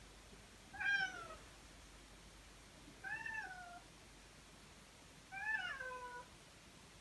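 Kurilian Bobtail cat meowing three times: drawn-out, moaning calls that rise and then fall in pitch, about two seconds apart. The owner takes this restless night-time calling for the cat's reaction to the herbal sedative Fitex.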